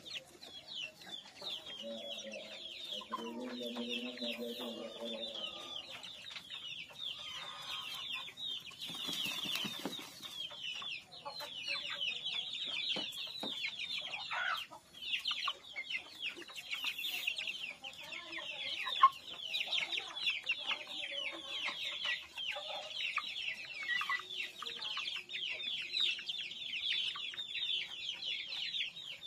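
Young village chickens (ayam kampung) peeping continually, with many short, high, falling peeps overlapping in a dense chatter. There is a brief scuffling noise about nine seconds in.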